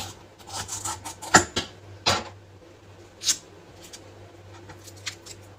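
Fibrous palmyra sprout strips being pulled apart and handled on a wooden chopping board: dry rustling and crackling, with a few sharp snaps, the loudest about a second and a half in.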